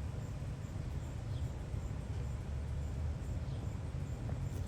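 Outdoor background: a steady low rumble with a few faint short bird chirps. No siren is sounding yet.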